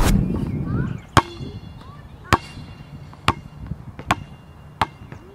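Music fades out, then a basketball bounces on an outdoor hard court: five sharp bounces about a second apart, coming slightly closer together, the first the loudest.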